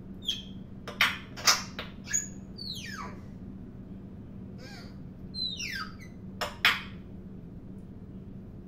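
African grey parrot calling: short harsh squawks and clicks, with two whistles that slide down in pitch, in two bursts a few seconds apart.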